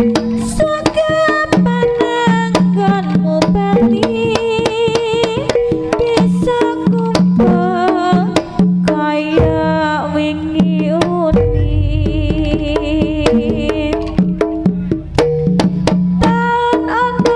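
Live Javanese jaranan ensemble playing: hand drums beat a quick, busy rhythm under wavering melody lines. A deep low tone comes in about eleven seconds in and holds.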